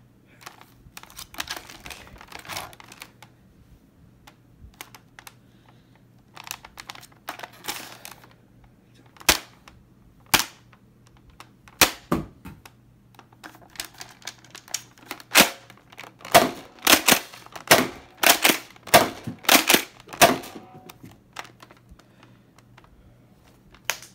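Toy Nerf blaster being handled and fired: a few stretches of rattling handling, then sharp clacks that come faster in the second half, about two a second.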